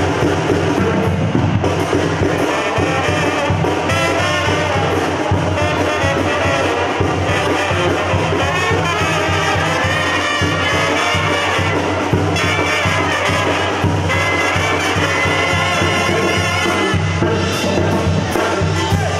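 A Mexican banda playing live: trumpets and trombones over a sousaphone bass line and drums, with a few long held horn notes in the second half.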